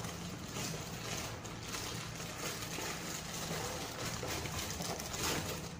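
A packaging bag rustling as it is handled and opened, in uneven scratchy bursts over a steady low hum.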